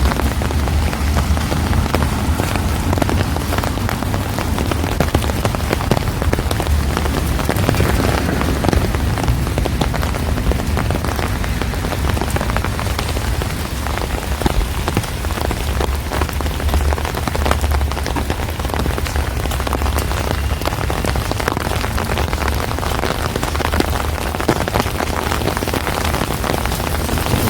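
Steady heavy rain falling on a street and the surfaces around it, a dense even hiss crowded with the ticks of individual drops, over a constant low rumble.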